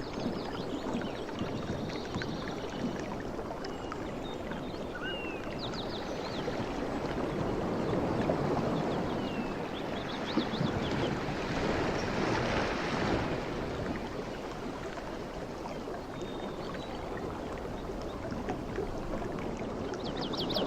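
Sea waves washing in and out, swelling twice through the middle, with small forest birds chirping and trilling over them.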